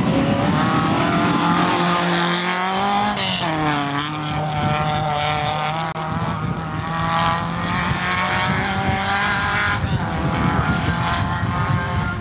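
Rally car engine at high revs as the car accelerates away on a stage. The engine note climbs, drops sharply about three seconds in at a gear change, then holds steady before fading about ten seconds in.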